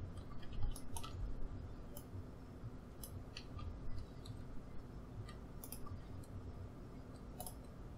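Scattered light clicks of a computer mouse and keyboard, a dozen or so at uneven intervals, over a faint low hum.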